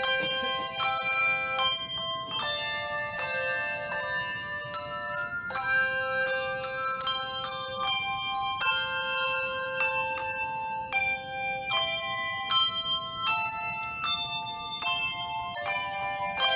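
Handbell choir playing a hymn tune on brass handbells together with handchimes. Chords are struck one after another, several notes at once, and each rings on into the next.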